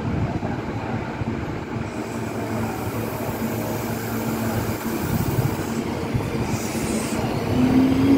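Kintetsu limited express electric train running into the station and passing close alongside: a steady rumble of wheels on rail with a faint motor hum. A rising electric whine starts near the end as the cars go by.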